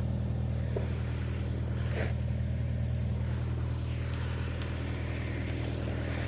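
An engine running steadily at an even, low pitch, with a couple of faint light knocks about one and two seconds in.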